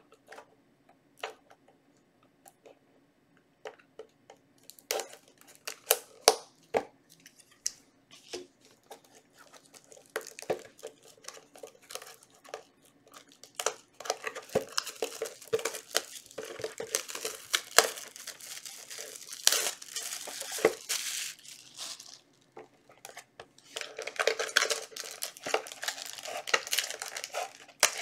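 Packaging of a Yu-Gi-Oh trading-card booster box and its foil booster packs being opened by hand. Scattered taps and clicks give way, about halfway through, to long stretches of crinkling and tearing.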